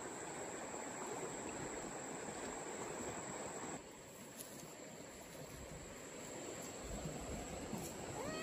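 Outdoor rural ambience: insects keep up a steady high drone over a soft hiss, which drops in level about four seconds in. Right at the end, a kitten starts a short meow.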